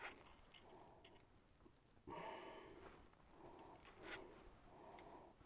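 Near silence: faint breathing and a few soft clicks of a spinning reel being worked while a fish is played.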